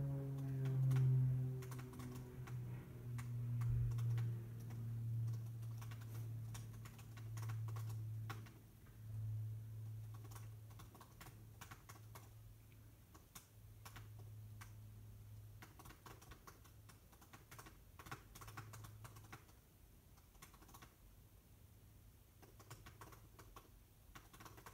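Puppy gnawing and licking at a plush chew toy: irregular small clicks and smacks. A low hum pulses and fades away over the first twenty seconds or so.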